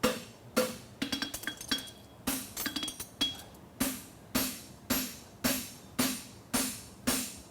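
Farrier's hand hammer striking a steel horseshoe on an anvil to tighten the toe. A few light, quick taps come first, then steady blows about two a second, each ringing briefly.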